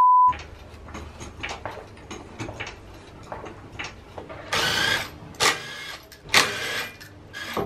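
A steady test-tone beep cuts off just after the start. Then the lug nuts on a Lexus IS200's front wheel are taken off: light clicks and knocks, then three short buzzing bursts of a power tool spinning the nuts loose, about a second apart.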